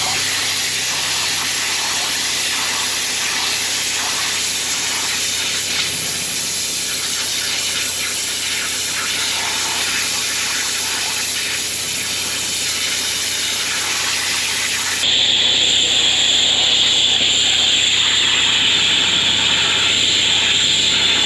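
High-pressure water from a drain jetter spraying, a steady hissing gush as it washes down a manhole and a camera head. About fifteen seconds in the spray turns louder and brighter.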